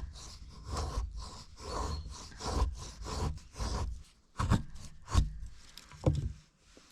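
Knife blade shaving thin curls down a wooden stick to make a feather stick: repeated scraping strokes about two a second, then a few sharper, more widely spaced strokes in the second half.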